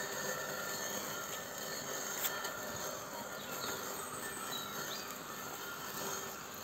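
Tech Line robotic lawnmower running as it drives over and cuts the grass: a steady whir with a faint whine, over a hiss of outdoor air. A single sharp click about two seconds in.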